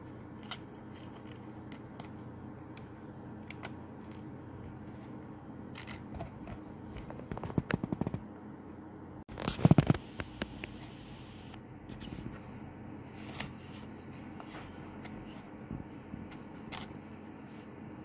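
Fingers handling a laptop's flat ribbon cable and its connector on the motherboard: scattered small clicks and rustles, a flurry of quick clicks about eight seconds in and a louder rustling burst about ten seconds in, over a steady low hum.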